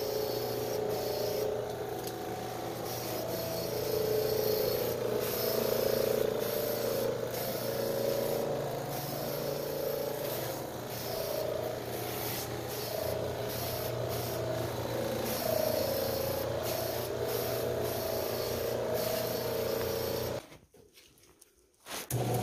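Carpet pre-spray wand hissing in repeated short bursts over a steady machine hum. The sound drops out briefly near the end.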